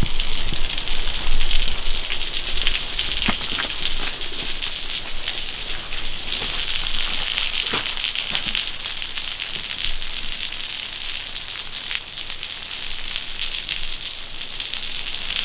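Water falling in drops and spray and spattering on wet rock: a steady hiss full of tiny ticks, with a few soft knocks now and then.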